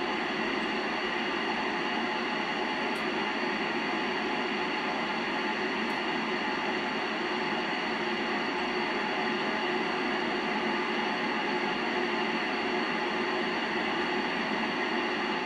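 Steady open-squelch receiver hiss from the Yaesu FT-847 tuned to the ISS voice repeater downlink on 437.800 MHz, with no station coming through.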